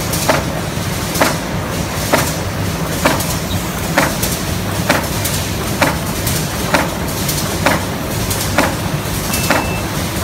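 TZC automatic die-cutting press running, its platen striking with a sharp clack roughly once a second over a steady motor hum.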